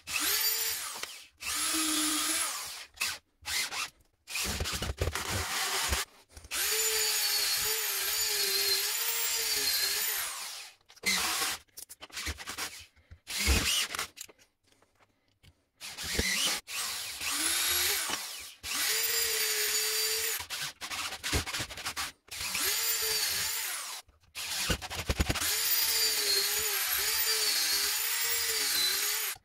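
Electric drill running in a dozen or so trigger bursts, from under a second to about four seconds each, with short pauses between; its steady whine sags slightly in pitch now and then as it bites into the wood.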